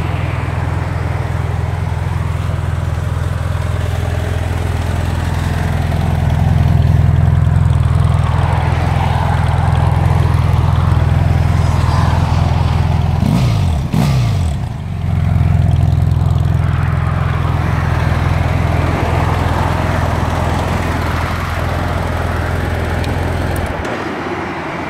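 BMW F800GS 798 cc parallel-twin engine idling steadily, louder from about six seconds in when heard close to the exhaust silencer. It is switched off just before the end.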